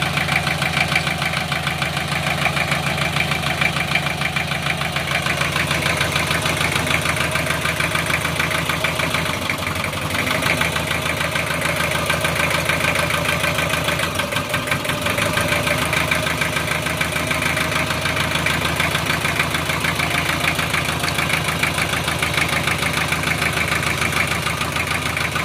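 Nissan 2.5-litre four-cylinder marine diesel idling steadily with a fast, even ticking, while air is being bled from its injector lines.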